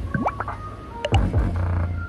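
Bass-heavy music playing through a subwoofer driven by a homemade amplifier: a strong deep bass line with sweeps rising and falling in pitch about once a second.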